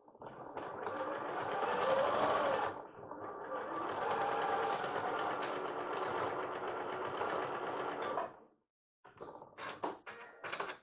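Bernina b38 computerised sewing machine stitching at speed, in two runs with a short pause about three seconds in, its motor pitch rising as it speeds up; it stops about eight seconds in. A few short clicks and knocks of fabric and machine handling follow near the end.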